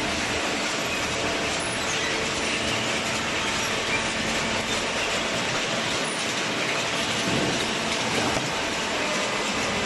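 Vertical hydraulic baler working, a steady machine noise with rattling and clattering.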